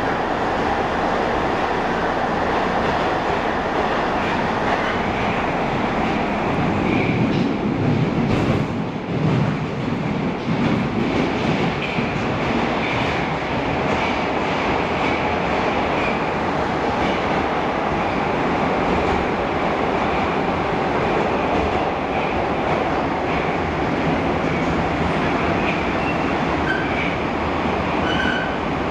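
Interior running noise of an 81-720 'Yauza' metro car under way: a steady rumble of wheels on rail and running gear, a little louder and rougher for a few seconds about a quarter of the way in.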